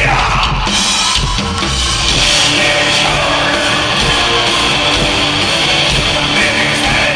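Live heavy-metal band playing loudly, with drums and heavy guitars all coming in hard right at the start and carrying on steadily.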